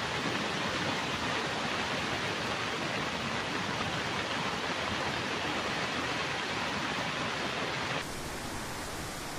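Fast muddy floodwater from a cloudburst rushing past in a steady, loud wash of noise. About eight seconds in it cuts off abruptly and is replaced by a quieter steady hiss.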